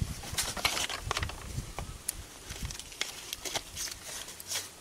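Metal kettle at a rolling boil on a wood-fired stove, water bubbling and spitting in irregular crackles.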